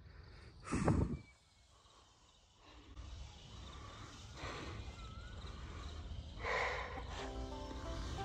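A cyclist's sharp, heavy breaths from the effort of pedalling uphill, over a low rumble of wind on the microphone. Background music comes in near the end.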